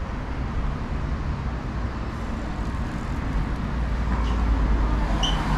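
City street traffic noise: a steady wash of passing cars, with a low rumble building near the end and a brief high chirp just before it stops.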